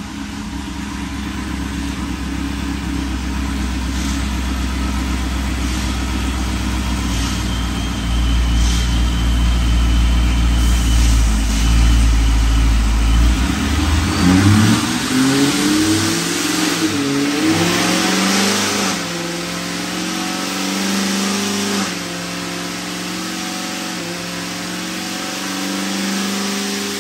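Supercharged V8 of a ProCharger D1X-boosted Pontiac G8 GT running on a chassis dyno under load. It gets louder about eight seconds in, the revs swing up and down in the middle, and it falls back to a steadier run near the end.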